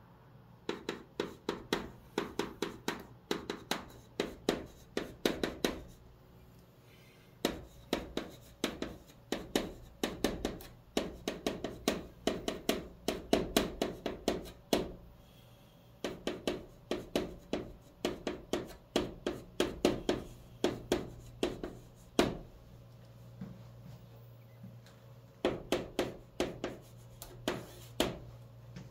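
Chalk in a holder writing on a green chalkboard: quick tapping and scratching strokes, several a second, in runs of a few seconds separated by brief pauses.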